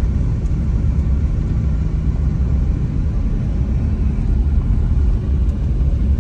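A car driving on a rough, unpaved road under construction, heard as a steady low rumble of engine and road noise.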